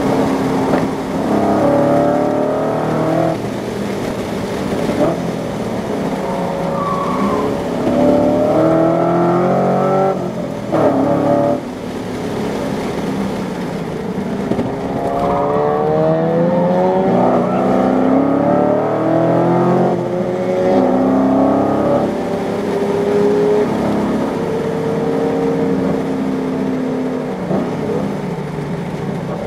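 Holden SS V8 engine heard from inside the cabin, driven hard on track: the engine note climbs as it accelerates and drops back at each gear change or lift for a corner, over and over.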